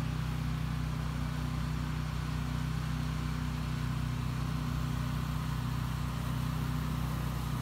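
Small engine running steadily at a constant speed, driving the soft-wash spray rig's pump, with a steady hiss above the hum.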